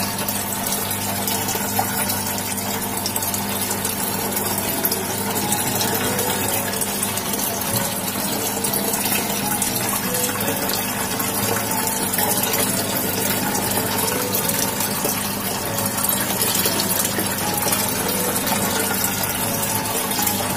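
Aquarium pump running, giving a steady rush of bubbling water with a low hum.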